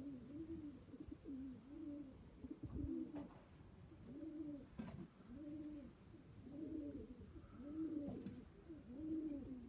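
Pigeons cooing, several birds overlapping in a steady run of rising-and-falling coos, with a couple of faint knocks.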